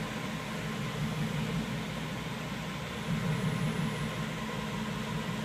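Chevrolet LS3 6.2-litre V8 idling steadily, a low even hum under a hiss of running noise.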